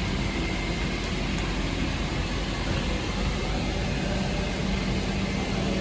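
Steady rushing background noise with a constant low hum, like air handling or machinery running, with no distinct events.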